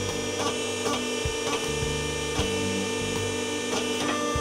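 Scotchman hydraulic ironworker running with a steady hum while its brake bends a sheet of 3/16-inch aluminum diamond plate, with scattered light clicks and knocks. The low part of the hum changes about two seconds in.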